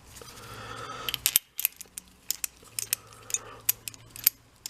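Small metal parts of a disassembled air impact wrench being handled. A scraping rub builds over the first second, then comes a run of light, irregular metallic clicks and clinks.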